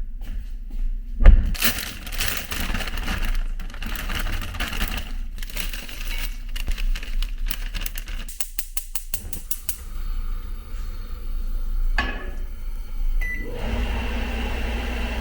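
A thick steak searing in a hot pan. A heavy knock comes about a second in, then a loud, dense crackling sizzle that thins to a steadier, quieter hiss later on.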